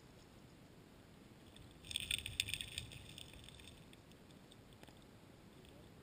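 Underwater clicking and rattling: a quick burst of many small clicks about two seconds in, lasting around a second and a half, over a faint steady hiss of the current heard through the camera's housing.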